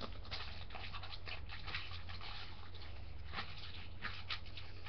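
Faint rustling and scattered light taps as plastic Beyblade parts and packaging are handled, over a steady low hum.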